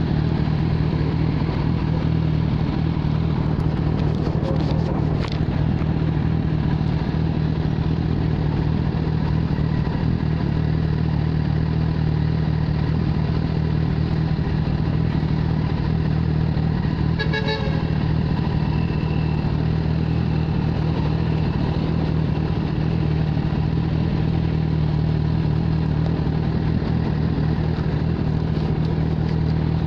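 2015 Kawasaki Z1000's inline-four engine idling steadily through an aftermarket SC Project exhaust, with an even low note.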